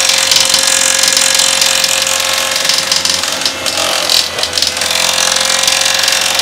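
Miyako food processor's electric motor running steadily at maximum speed, with a high whine, as vegetables are pushed down the feed tube onto its spinning slicing blade.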